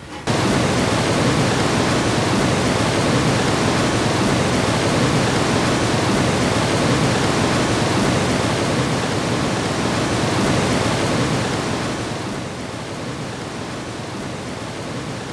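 Polluted, foam-covered river water rushing and churning: a steady wash of water noise that starts abruptly and eases somewhat about twelve seconds in.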